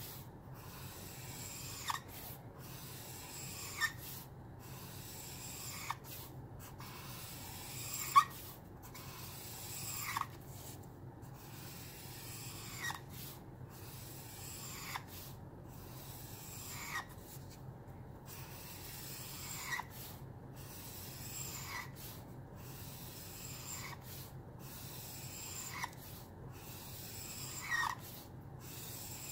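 Felt nib of a Caliart alcohol marker scratching across paper in long line strokes, about one every two seconds, each ending in a short falling squeak. The marker is nearly out of ink.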